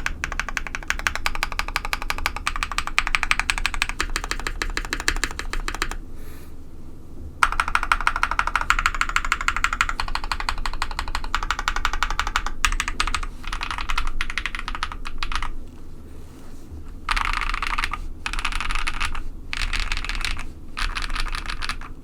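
Fast typing on a custom KBD67 Lite R2 mechanical keyboard with lubed linear KTT Strawberry switches on a polycarbonate plate and PBT keycaps, each keystroke giving a popping clack, with some faint spring ping from under-lubed springs. A long run of fast typing stops briefly about six seconds in, then resumes; in the second half it breaks into shorter bursts with pauses between them.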